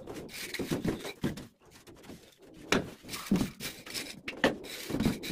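Irregular scraping and knocking of a hand tool working wet sand-and-cement mortar on a concrete ceiling.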